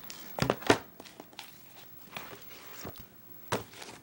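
Hardcover art books being handled on a wooden table: two knocks about half a second in, then a few lighter taps and rustles.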